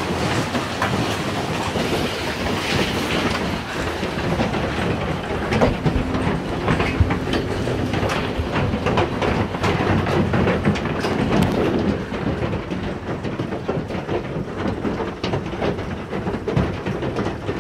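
Hail and heavy rain pounding on a house, heard from indoors: a loud, dense, steady clatter of countless small hits over a rushing roar.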